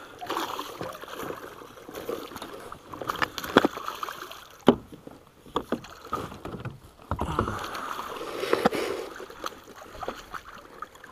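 Largemouth bass thrashing and splashing at the water's surface beside a fishing kayak, with scattered sharp knocks and clicks of handling against the boat.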